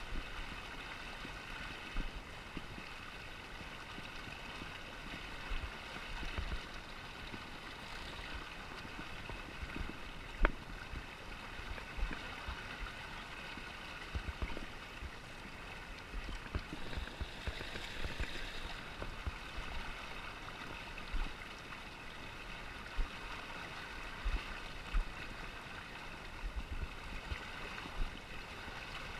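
Steady rush of fast-moving river water around a pontoon boat, with scattered low thumps and one sharp click about ten seconds in.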